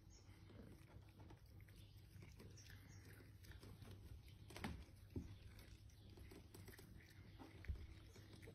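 Faint chewing of cats biting into and tearing at cat grass: scattered soft crunches and clicks, with a few sharper snaps about halfway through and near the end.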